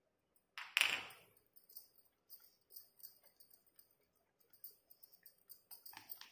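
Silicone spatula pressing chopped nuts into the soft top of a tray of date barfi, with faint scraping and small ticks. There is a louder knock about a second in and another near the end.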